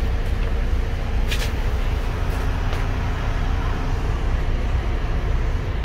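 Bus engine running with a steady low rumble, heard from inside the bus. There is a brief hiss about a second and a half in.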